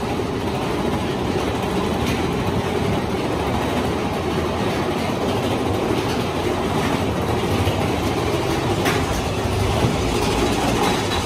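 Roller-coaster train running through a cave tunnel: a steady rumble and clatter of wheels on track, with a couple of sharp clicks.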